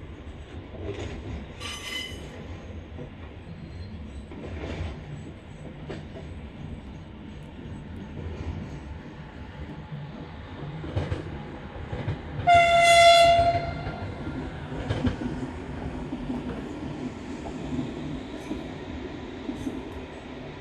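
Freight train passing behind G522, a Pacific National G-class diesel locomotive, with a steady rumble and clatter of wagons on the rails. There is a short horn toot about two seconds in, and a louder single-note horn blast lasting about a second roughly two-thirds of the way through.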